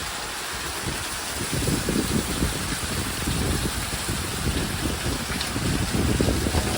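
Rain falling steadily: a continuous, even hiss with irregular low rumbles underneath.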